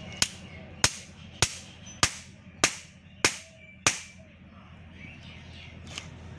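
Hammer blows on a steel link pin of a CAT 120H motor grader's tandem drive roller chain, laid across a wooden block: seven evenly spaced strikes, a little under two a second, each ringing briefly, then one faint knock a couple of seconds later.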